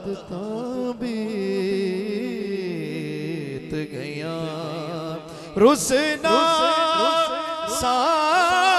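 A male naat khwan singing a slow, drawn-out devotional line in Punjabi. About two-thirds of the way in, his voice rises sharply into loud held notes with a wide vibrato.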